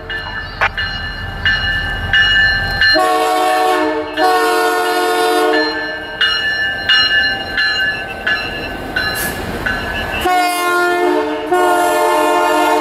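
Canadian Pacific GP22C-ECO diesel locomotive sounding its multi-note air horn in a long series of short and longer blasts as it passes close by. A low engine rumble underlies the first few seconds, and the horn carries on while the boxcars roll past.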